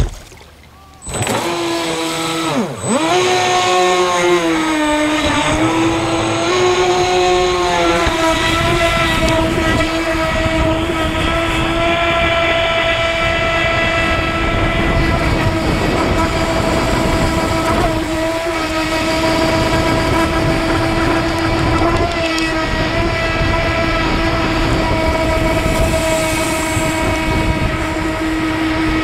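Electric motor of an AquaCraft MiniMono RC speedboat running with a steady high whine. About a second in it starts up, dips sharply in pitch once and wavers for a few seconds before settling to an even tone under throttle.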